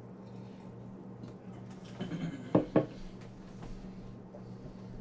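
Drinking glass handled while a man drinks from it: two sharp knocks close together about halfway through, with a few smaller scuffs just before, over a steady low hum.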